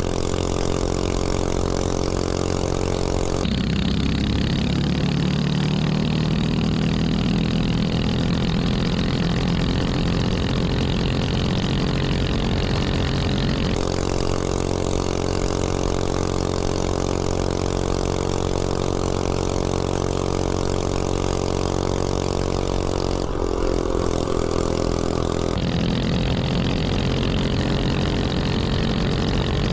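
179cc single-cylinder snowblower engine on a Coleman CC100X mini bike running hard at about 40 mph with no exhaust pipe fitted, over wind and road noise. The engine note shifts abruptly a few times.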